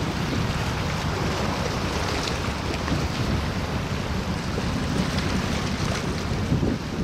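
Wind buffeting the microphone outdoors by the water: a gusting low rumble with a steady hiss above it.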